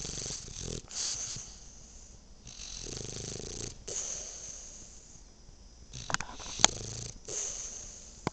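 French bulldog snoring in its sleep: about five noisy breaths in and out. A few sharp clicks come about six seconds in, the loudest thing in the stretch.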